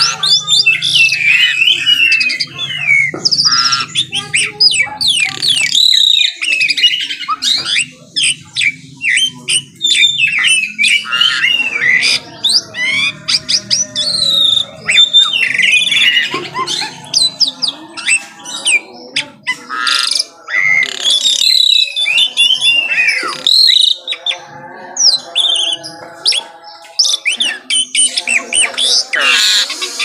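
White-rumped shama singing a long, varied song of rapid whistled and sliding notes mixed with harsher chattering phrases, almost without pause.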